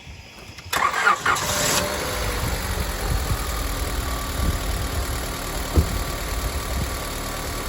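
Car engine cranked by its starter for about a second, catching and settling into a steady idle. The battery sags to 6.76 volts during the crank, showing it lacks the load capacity it needs and must be replaced.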